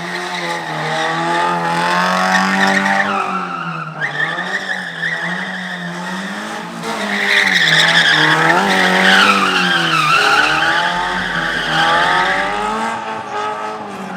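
Car drifting: the engine is held at high revs, rising and falling with the throttle, while the tyres squeal. The squeal is loudest in the second half.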